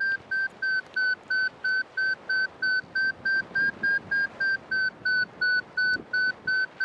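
Paragliding variometer giving its climb tone: short, evenly spaced beeps of one steady pitch, about three a second, which signal that the glider is rising in a weak thermal.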